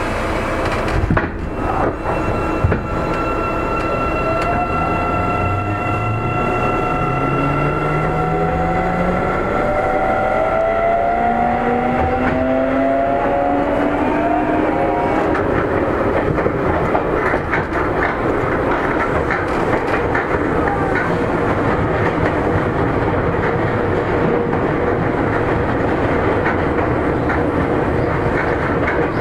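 Seibu 9000 series electric train pulling away. After a couple of knocks, the traction motors whine in several tones rising steadily in pitch as it accelerates. Their inverter tones fade after about fifteen seconds into steady running noise with wheel-on-rail clatter.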